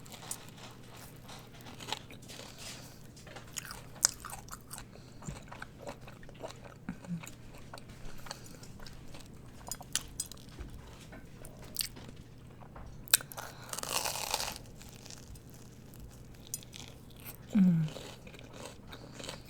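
A person eating close to the microphone: crunchy bites and chewing, with many short crisp clicks. There is one louder crunch about three-quarters of the way through.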